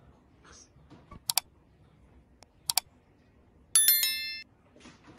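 Subscribe-button animation sound effect: two quick mouse clicks about a second and a half apart, then a bright notification-bell ding, the loudest sound, that rings for about half a second and cuts off abruptly.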